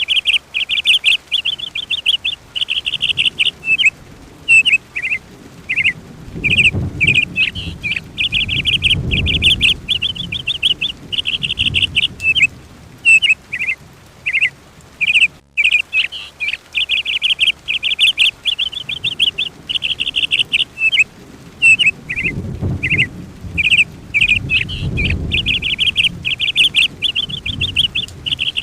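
A small songbird singing rapid, high chirps and trills almost without pause. A soft low rumble swells up and fades twice.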